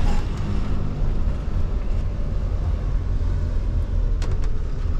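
Motorhome driving slowly, heard from inside the cab: a steady low engine rumble with road noise. A couple of light clicks come near the end.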